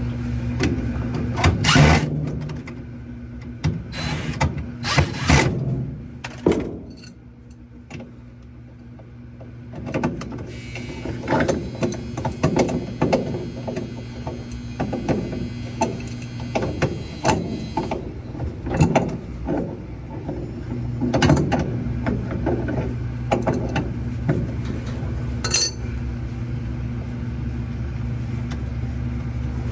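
Irregular clicks, knocks and rattles of hand tools and metal parts being handled and fastened, over a steady low hum.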